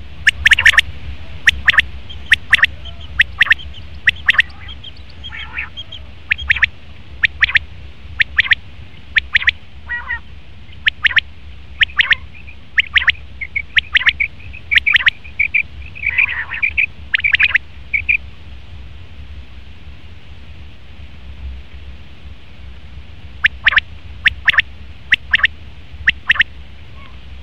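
Male common quail calling: short, sharp, loud notes repeated about once a second, stopping for several seconds before a few more near the end. A steady low hum runs underneath.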